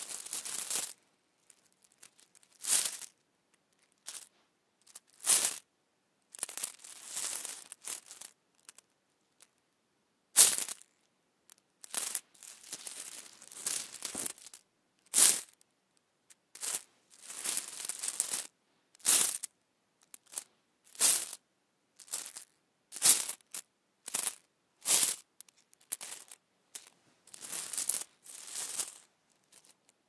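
Coins being rustled and handled in about twenty separate bursts with short silences between, some a single quick clink, others a second or two of shuffling.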